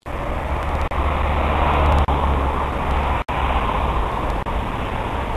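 Road traffic noise: a steady low rumble of passing cars that swells about two seconds in, with a few brief dropouts in the recording.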